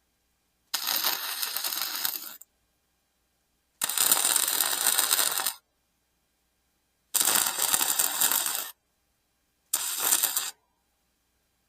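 Wire-feed welder laying short welds: four bursts of steady arc crackle, each one to two seconds long with the last one shorter, separated by silence as the trigger is released.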